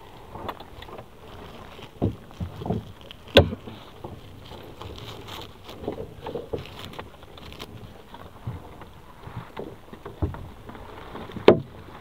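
Rustling and crinkling of a monofilament gill net and a plastic tarp handled by gloved hands in a small boat. Several sharp knocks, clustered about two to three and a half seconds in and again near the end.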